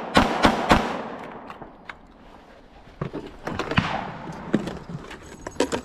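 Three pistol shots in quick succession, about three a second, fired one-handed at steel targets, closing a rapid string. After a quieter gap, scattered knocks and clicks of hands handling gear.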